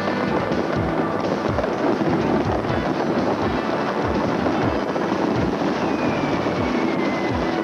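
Fireworks crackling and bursting in a dense, continuous barrage, over music with a steady low beat about twice a second. A whistling tone falls in pitch near the end.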